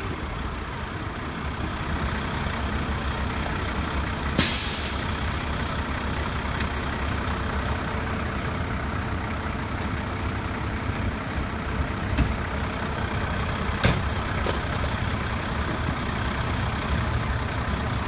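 Fire engine idling with a steady low rumble, with a short, loud air-brake hiss about four seconds in and a few brief knocks later on.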